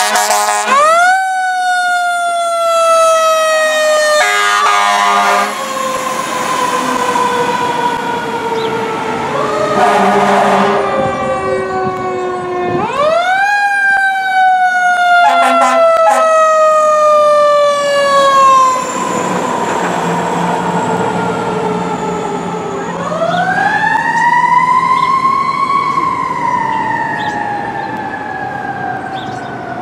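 Fire engine and ladder truck sirens on an emergency run: a mechanical siren winds up quickly and coasts slowly down, three times, with short air-horn blasts in between and truck engine noise underneath.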